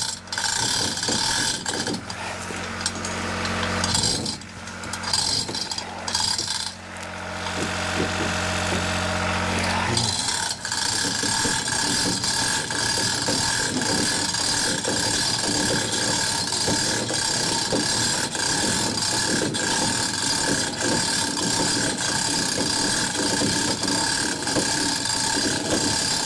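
Hand-chain hoist being pulled to lift the front of a snowmobile: rapid clicking of the ratchet pawl with rattling chain, steady from about ten seconds in. A low steady hum underlies the first part and stops at that point.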